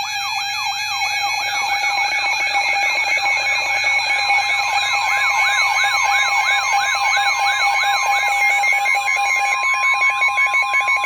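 Weather radio alert alarm: a siren-like tone that falls in pitch and repeats about three times a second over steady beeping tones. About eight seconds in, a steady single tone joins it, fitting the weather radio's 1050 Hz warning alarm tone that comes before the spoken warning.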